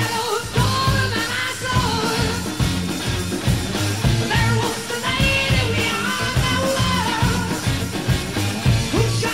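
Background music: a song with a steady drum beat under a melody line that bends in pitch.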